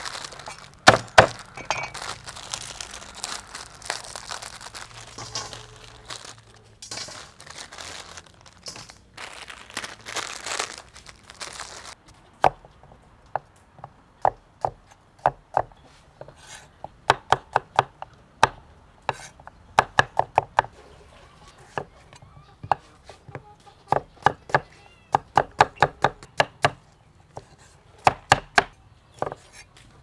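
Plastic foil packets crinkling and tearing as they are opened, for about the first twelve seconds. Then a cleaver chopping limes and tomatoes on a round wooden board, in quick runs of sharp strikes.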